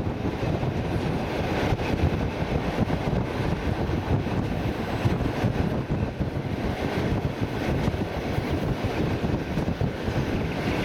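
Steady running noise of an ER9T electric multiple unit heard from aboard as it travels along the line, mixed with wind buffeting the microphone.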